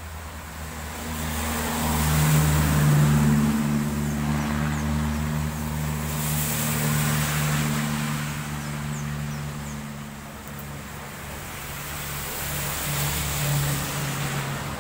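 Cars and a motorcycle passing on a wet road, their tyres hissing on the wet asphalt. The hiss swells with each pass, about two seconds in, around six to seven seconds and near the end, over a steady engine drone.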